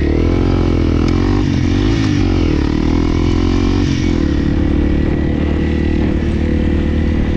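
Motorcycle engine running under way, its pitch rising and falling with the throttle for the first few seconds, then holding steady.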